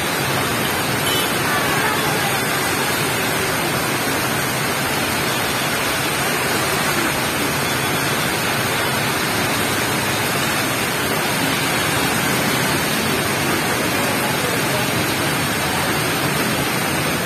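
Heavy rain falling in a steady, dense hiss, with faint voices underneath.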